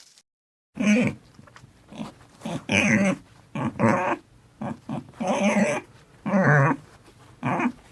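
A dog barking repeatedly, about eight loud barks spread over several seconds.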